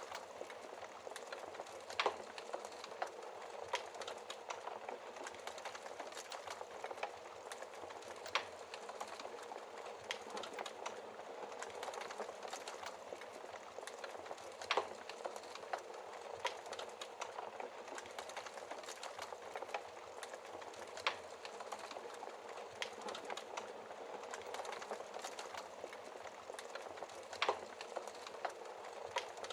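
Wood fire crackling in a fireplace: a steady hiss of small crackles, with a sharper pop about every six seconds.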